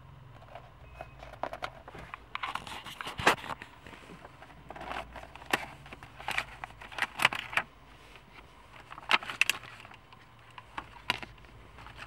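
Clear plastic blister packaging and its paper card being handled and opened: irregular crinkling and sharp plastic clicks in several short bouts, over a faint steady low hum.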